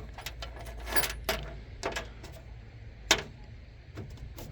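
Small metal tools and hardware clinking and rattling as they are handled and shuffled in a metal tool box drawer, in irregular taps with one sharp clack about three seconds in.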